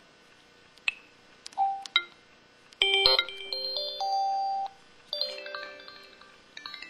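Samsung SPH-X9300 mobile phone's built-in sound effects playing through its speaker: a few short blips, then about three seconds in a bright synthesized chime jingle ending in a held tone, and from about five seconds in a descending run of chime notes that fades, with another starting near the end.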